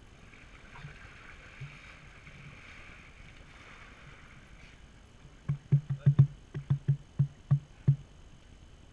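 About a dozen hollow knocks in quick, uneven succession on a GoPro's waterproof housing sitting at the pool's surface, over a faint hiss of water.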